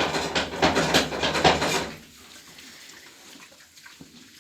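Pigs coughing in a pen: a quick run of harsh coughs over the first two seconds, then only faint background. The coughing is a sign of respiratory trouble in the pigs, which the farmer calls serious.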